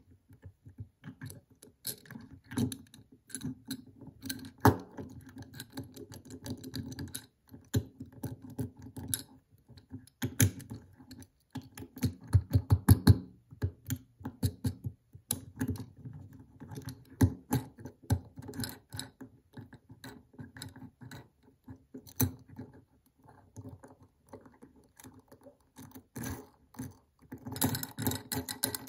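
Fingernails tapping and clicking on a small die-cast Hot Wheels dragster and the tabletop while the toy is handled and its wheels turned: an irregular run of light clicks and ticks, with a quick dense flurry a little before halfway and more near the end.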